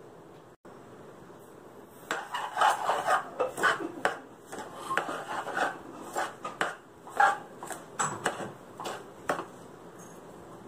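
Hand mixing sugar, gram flour and a wet carrot paste in an aluminium kadai: irregular scraping and rubbing of the gritty mix with sharp clicks and light knocks against the pan. It starts about two seconds in and dies away shortly before the end.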